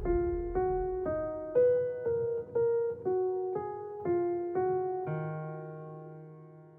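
Background music: a keyboard plays a melody of single notes about two a second, then ends on a held chord a little after five seconds in that slowly fades away.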